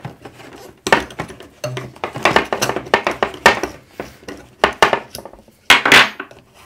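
Hard plastic clicks and clacks as a red plastic propeller is unscrewed and pulled off a racing quadcopter's motor by hand, in a series of sharp knocks.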